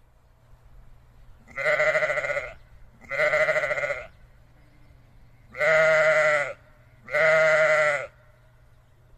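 A sheep bleating four times, in two pairs, each bleat about a second long with a wavering, quavering pitch.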